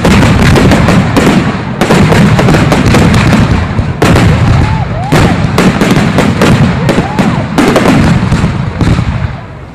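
Aerial firework shells bursting in a dense, near-continuous barrage of bangs and crackle, with fresh surges about two, four and seven and a half seconds in, tailing off near the end.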